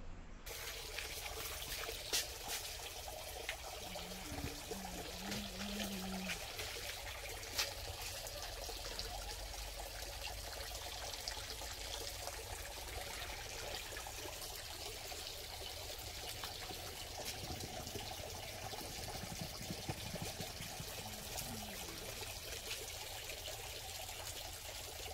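Steady trickling of running water, an even splashing hiss with no break.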